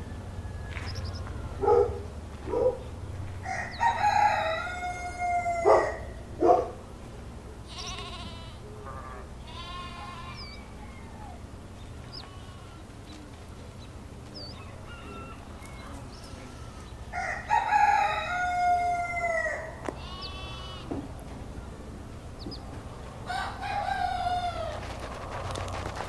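Rooster crowing three times, long calls spaced several seconds apart, with shorter clucking calls in between.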